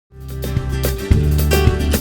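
Background music with plucked guitar notes over held bass notes, fading in from silence at the start.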